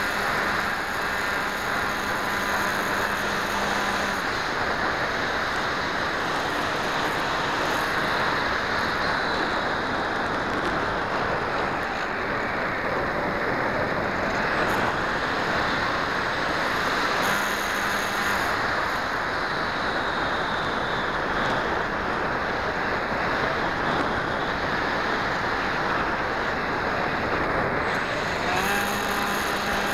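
Steady rushing wind noise over the microphone of a keychain camera carried aloft on a flying model plane, with a faint low hum in the first few seconds and again near the end.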